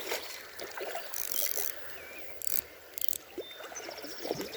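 Fishing reel working in three short bursts while a hooked trout is fought out of the weeds, over faint running stream water.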